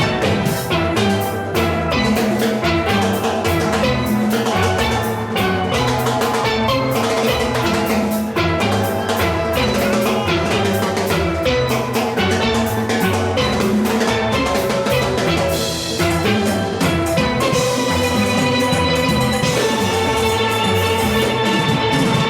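Steel pan orchestra playing live: many steelpans striking a fast melody and chords over bass pans and a driving drum-kit and percussion rhythm. Near the end the pans hold longer rolled notes.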